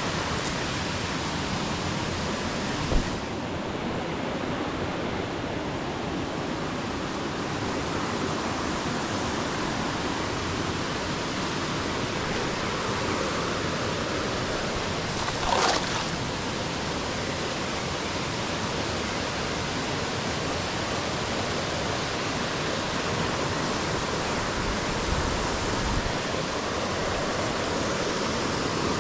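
Shallow rocky creek water rushing steadily over stones, with a short knock about three seconds in and a brief louder burst about halfway through.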